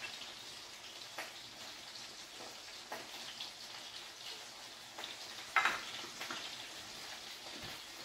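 Farm chickens browning in butter and oil on a gas burner: a faint, steady sizzle. A few light clinks from the stainless-steel mixing bowl as spices go in, the sharpest about halfway through.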